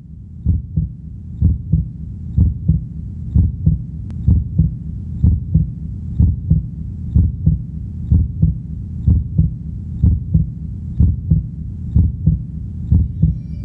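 Human heartbeat, a steady lub-dub about once a second over a low steady rumble.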